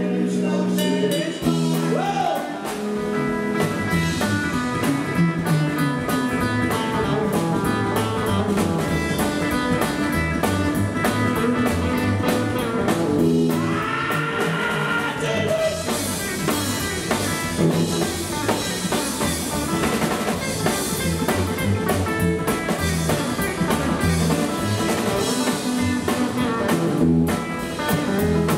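Live rockabilly band playing: electric lead guitar, acoustic rhythm guitar, double bass and drum kit keeping a steady beat, with a man singing at the microphone.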